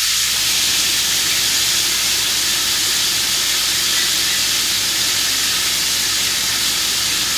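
Pieces of chuck steak sizzling steadily in butter in a hot cast iron skillet as they sear.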